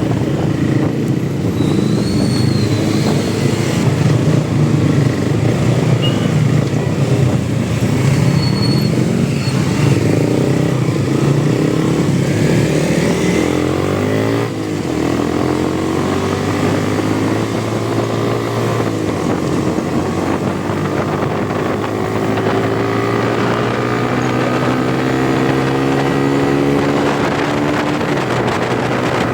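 Motorcycle engine running while riding. About halfway through the engine note drops briefly, then rises slowly and steadily as the bike accelerates.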